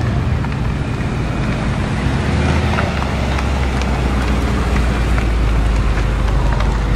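A car engine running with a steady low rumble that grows stronger in the second half, over street traffic noise.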